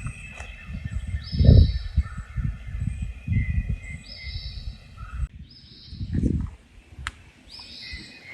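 A songbird calling outdoors, one short high note repeated about every two and a half seconds, over uneven low rumbling thumps.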